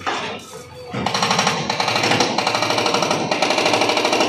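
Hydraulic breaker on a JCB 3DX backhoe loader hammering at a house wall in a rapid, even run of blows that starts about a second in.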